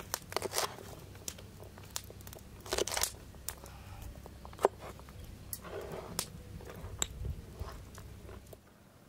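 Cleaver chopping fresh green chili peppers on a wooden cutting board: irregular sharp knocks of the blade on the wood with crisp crunches of the peppers, one knock louder about halfway through. The chopping trails off near the end.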